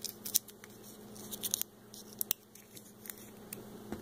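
Small plastic toy capsule handled and twisted shut between the fingers: a scatter of light, sharp plastic clicks and ticks.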